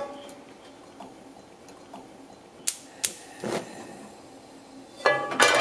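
Gas stove burner being lit: two sharp igniter clicks a third of a second apart about three seconds in, then a short soft burst as the flame catches.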